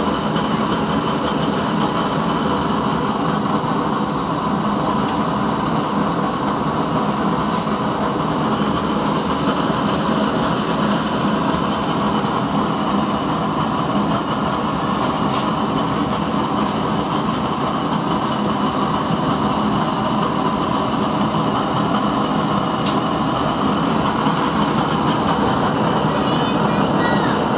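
Oil stove burner burning with a steady rushing roar of flame, unchanging throughout, with a few faint clicks.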